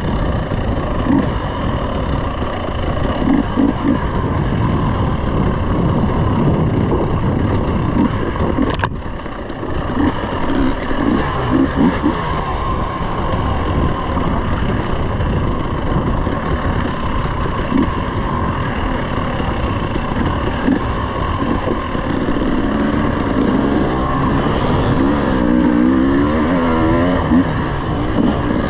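A 300cc two-stroke dirt bike engine running under throttle while riding a trail, the engine note rising and falling with the throttle. The level drops briefly about nine seconds in, and near the end the pitch swings up and down as the rider works the throttle.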